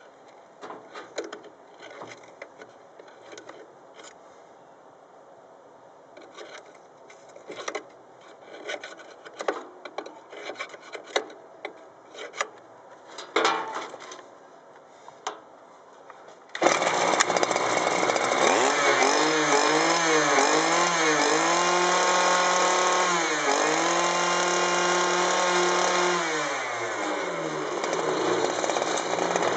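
Clicks and knocks of a petrol string trimmer being handled. A little past halfway its engine starts and runs, revving up and down, then holding high revs before dropping back toward idle near the end.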